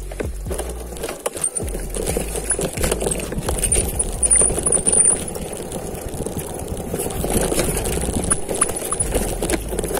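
Mountain bike rolling fast down a rough trail: the bike rattles and clatters in quick irregular knocks over the ground, with a steady low rumble underneath.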